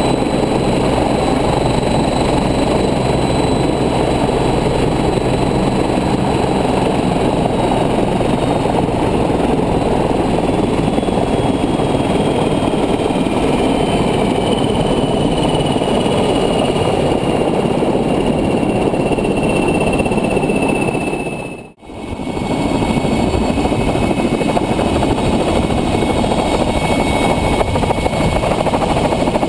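Twin-turbine Agusta helicopter running on the ground with its rotor turning during a blade-balancing engine run: a loud steady turbine and rotor noise with a high whine that slowly falls in pitch. The sound cuts out briefly about three-quarters of the way through.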